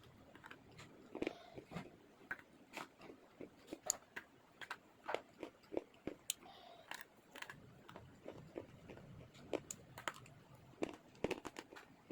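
Someone biting and chewing white chocolate close to the microphone: irregular sharp crunching clicks.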